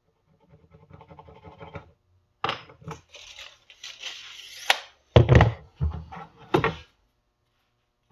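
Tape measure blade sliding back into its case and ending in a sharp click, followed by several loud thunks of tools being handled and set down on a plywood sheet on a workbench.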